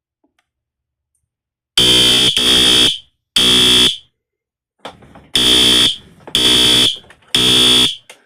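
Fire alarm horn sounding in the temporal-three evacuation pattern: two sets of three loud, high-pitched blasts, each about half a second long, starting about two seconds in. It is set off by pressing the test switch on a newly wired smoke detector.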